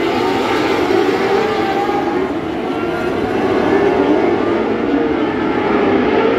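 Non-wing micro sprint cars racing on a dirt oval, their motorcycle engines running at high revs together, the overlapping engine notes rising and falling as the cars go around the track.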